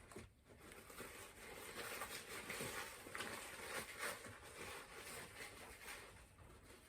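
Faint rustling and handling of packaging while someone rummages through a box of items.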